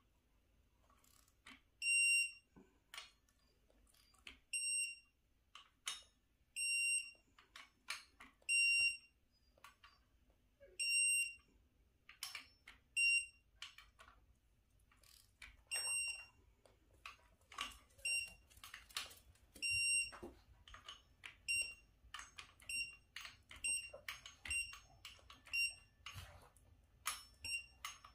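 Harbor Freight digital torque wrench giving short, high beeps as flywheel bolts are pulled up to its 30 ft-lb setting on the first tightening pass, a dozen or more beeps at uneven intervals, coming more often in the second half. Light clicks of the wrench and tools sound between the beeps.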